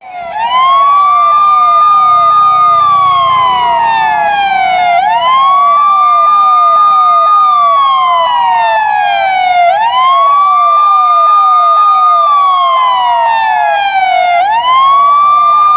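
Police car siren wailing. Its pitch rises quickly, holds, then slides slowly down, repeating about every five seconds, with a faster chirping sweep of about three a second running under it.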